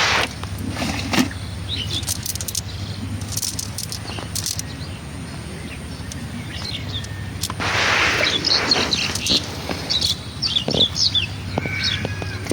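Small birds chirping in short calls over steady outdoor background noise, with two brief rushes of noise, one at the start and one about two-thirds of the way through.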